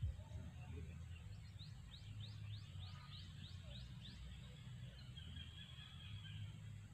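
A bird calling in a quick run of short rising chirps, about four a second for a couple of seconds, over a faint low steady rumble.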